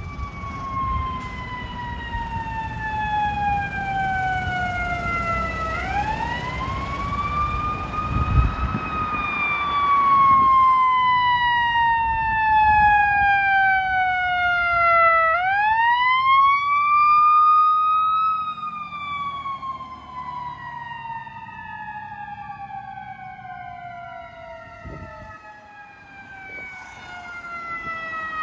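Fire truck siren winding down in long, slow falls, spun up sharply twice, about six and fifteen seconds in, with a low engine rumble underneath.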